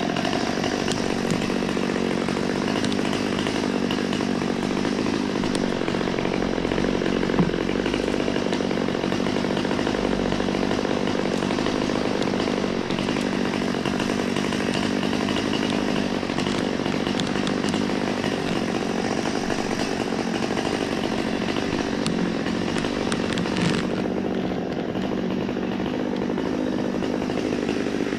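Two-stroke chainsaw engine running at a steady speed.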